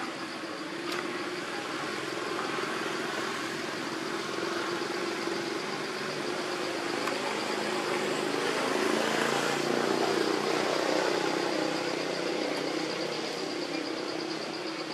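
A motor engine running steadily, its low hum growing a little louder just past the middle and easing off again.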